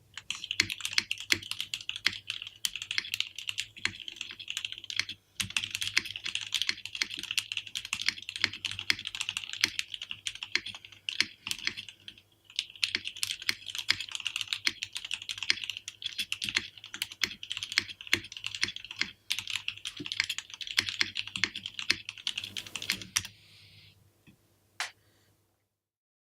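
Continuous typing on a mechanical keyboard with lubed 62g vintage Cherry MX Black linear switches mounted on a 3mm clear acrylic plate, under dye-sub PBT Cherry-profile keycaps. It is a steady stream of keystrokes that pauses briefly midway and stops about 23 seconds in, with one last lone keystroke near the end.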